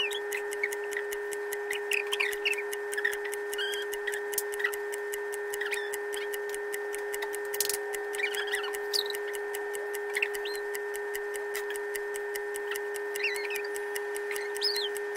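Ticking-clock sound effect: rapid, even ticks over a steady droning tone, with scattered faint high chirps.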